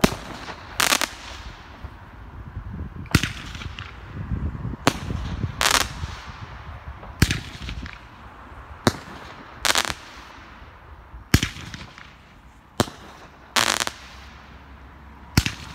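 A consumer firework cake firing its shots one after another, roughly one every one and a half seconds. Each shot is a sharp bang followed within a second by a longer burst.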